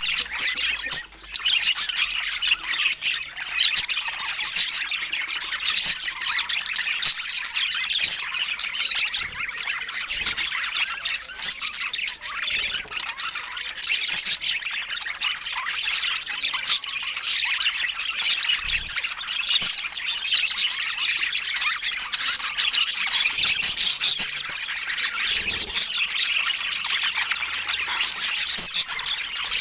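Budgerigars calling continuously, a dense stream of short, high chirps and chatter.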